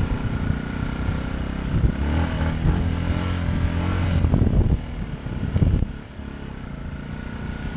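Yamaha WR125 dirt bike's four-stroke single-cylinder engine running at low speed on a rough track, with a few knocks partway through; the engine goes quieter after about five seconds as the throttle eases off.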